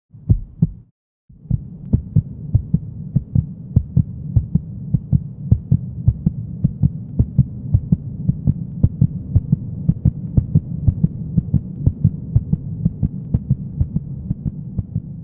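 Low thuds in heartbeat-like pairs, then a steady throbbing bass hum with quick, even pulses about four a second, like the bed of an electronic outro track.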